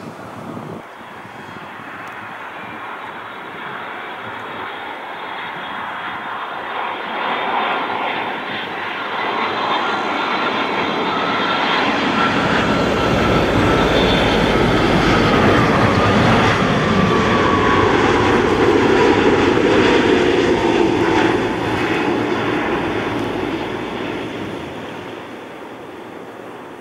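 Boeing 787 jet airliner on low final approach passing close overhead. Its engine noise swells, peaks with a whine that slowly drops in pitch as it goes by, then fades away.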